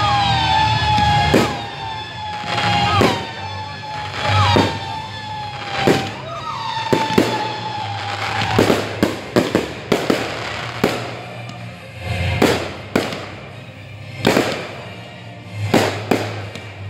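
Fireworks launching and bursting in a series of sharp bangs one to two seconds apart, coming closer together in the second half. A steady high tone slowly drops in pitch through the first half and stops about halfway.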